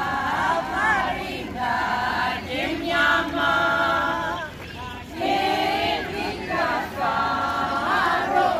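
A group of women and men singing a traditional Greek Easter dance song together, unaccompanied, in long held phrases with short pauses between.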